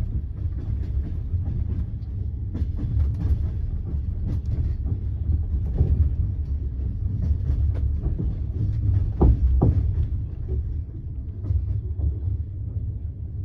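Passenger train carriage in motion, heard from inside: a steady low rumble of the wheels on the rails, with scattered clicks and knocks as the wheels run over rail joints and points, a sharper pair of knocks about nine seconds in.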